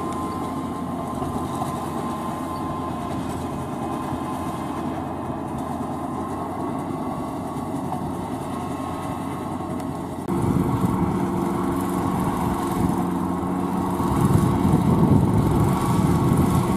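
Kubota L4508VN tractor's 2.2-litre four-cylinder V2203 direct-injection diesel running steadily under load, pulling a rotary tiller through flooded paddy. About ten seconds in it suddenly becomes louder and deeper.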